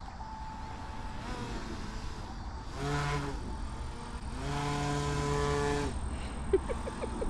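The electric motor and air propeller of an Aquacraft Mini Gator Tours RC airboat, run in two bursts of throttle. Each burst is a steady hum at a constant pitch: a short one about three seconds in, then a longer one of about a second and a half.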